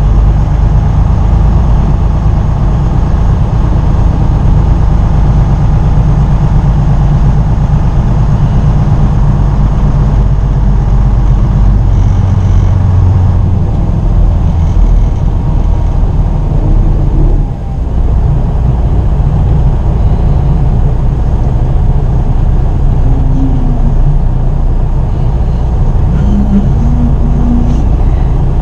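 Freightliner Cascadia semi-truck's diesel engine running as the truck drives, heard from inside the cab: a loud, steady low rumble, with a brief drop in level a little past halfway.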